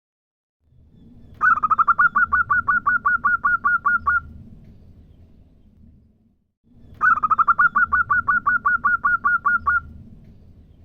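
Female zebra dove calling twice, each call a quick, even run of about fourteen short, clear notes at roughly five a second. A low background hum sits under each call.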